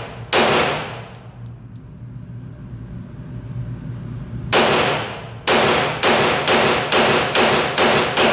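Gunshots from a firearm being fired. There is one shot just after the start, then after a pause of about four seconds a rapid string of about nine shots, speeding up to roughly three a second. Each shot has a short ringing tail.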